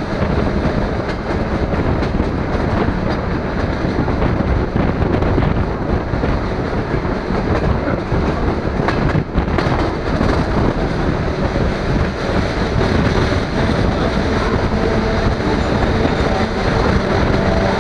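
DR1A diesel multiple unit running along the track, heard from an open carriage window: a steady rumble of its wheels on the rails.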